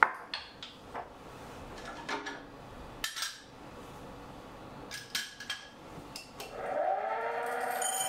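Light metal clinks from a dosing cup and portafilter being handled, then the Lagom P100 grinder's motor (fitted with SSP 98 mm burrs) spinning up with a rising whine that levels off into a steady whine near the end.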